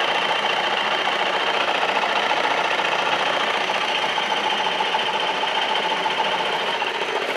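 Beldray Sonic Multiclean cordless floor cleaner running with its pads off the floor, the motor driving the microfibre pads in a fast oscillating scrub of about 900 oscillations a minute. A steady mechanical hum that holds without change.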